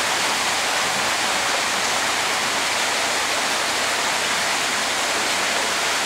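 Steady rushing of running water in a koi pool, its surface kept churned and rippling.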